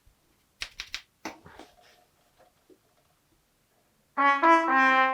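A quick run of about five light clicks, then about four seconds in a short brass sound effect: two held trumpet-like notes, the second a little lower, fading out at the end.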